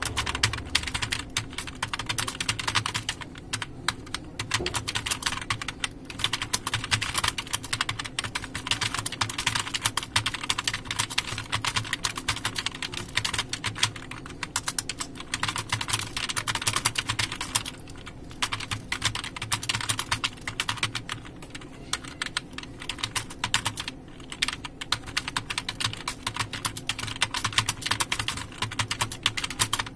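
Fast, continuous typing on a computer keyboard: a rapid stream of key clicks broken by a few brief pauses.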